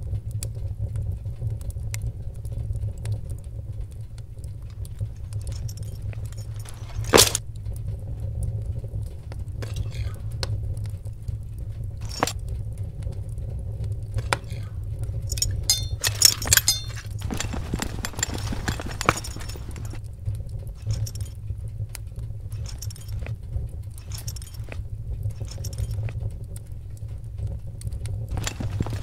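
Foley sound effects over a steady low rumble: scattered clicks and knocks, one sharp click about seven seconds in, and a burst of metallic jingling about sixteen seconds in.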